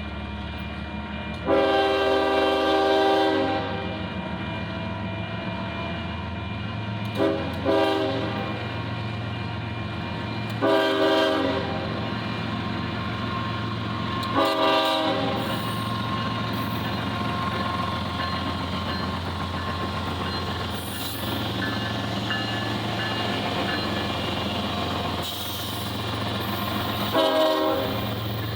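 Air horn of Union Pacific GE AC45CCTE locomotive 7774 sounding six blasts: a long one of about two seconds, two quick short toots, two more of about a second each, and a short one near the end. Under the horn the train runs with a steady low rumble.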